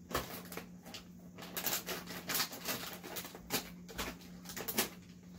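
Plastic snack bag crackling and crinkling in quick irregular bursts as it is cut open with scissors and handled.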